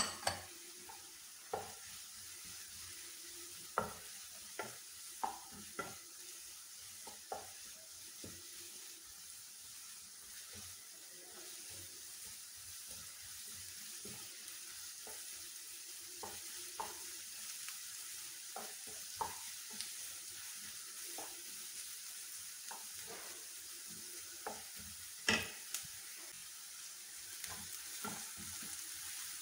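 Chopped onion, green chilli and beans frying in a non-stick kadai with a faint, steady sizzle. A wooden spatula stirs them, with irregular light taps and scrapes against the pan, a few of them louder.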